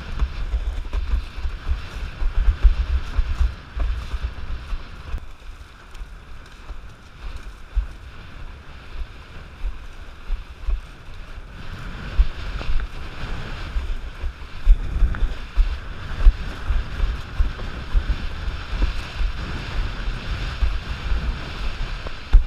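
Wind buffeting an action camera's microphone in gusts over the rush and splash of water from a Starboard 94 windsurf board sailing across choppy water. The buffeting eases for a few seconds in the middle and picks up again.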